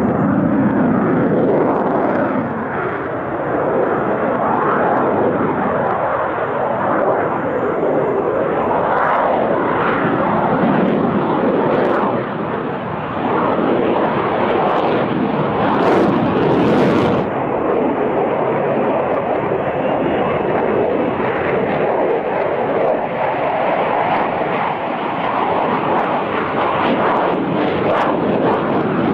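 Twin-engine Sukhoi Su-35 fighter jet's turbofan engines at high power during a flying display: a continuous loud jet roar that swells and ebbs as the aircraft maneuvers, with falling pitch sweeps in the first few seconds.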